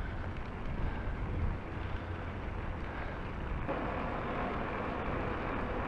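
Wind rushing over the microphone of a moving bicycle's camera, with the rumble of the bike rolling along the road. The noise turns brighter and fuller a little past halfway.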